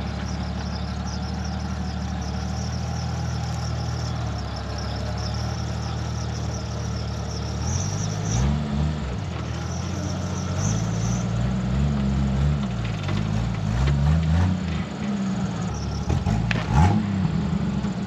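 Vehicle engine idling steadily, then revved up and down several times from about halfway through.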